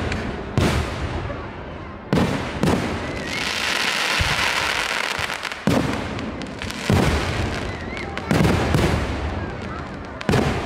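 Fireworks display: aerial shells bursting with sharp booms about every second or two, some eight in all, and a dense crackling hiss for a few seconds in the middle.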